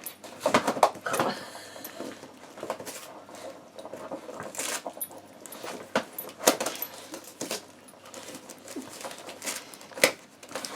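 Wrapping paper crackling and tearing in short, irregular rustles as a Jack Russell terrier rips open Christmas presents.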